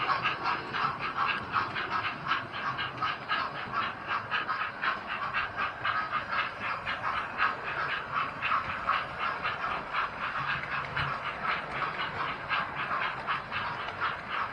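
Steam locomotive chuffing steadily in a quick, even rhythm of hissy exhaust beats.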